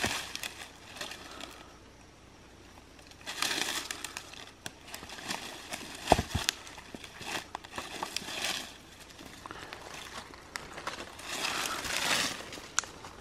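Dry leaf litter rustling and crackling in bursts as hands rummage through it and shift stones on the forest floor, with scattered small clicks and one sharp knock about six seconds in.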